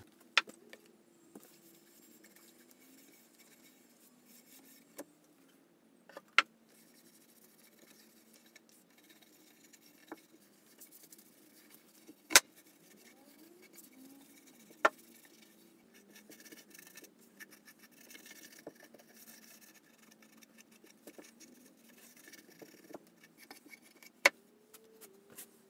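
Quiet handling sounds while wiping oil onto an oak table with a rag: faint cloth rubbing on the wood and a handful of sharp knocks and clicks as the piece and the oil can are moved, the loudest about halfway through. A faint low hum that wavers in pitch lies underneath.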